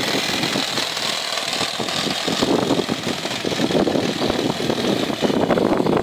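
Small internal-combustion engine of a live-diesel garden-railway locomotive running steadily under load in its third, overdrive gear, hauling a train of wagons. Its mixture is leaned to two turns open on the needle valve.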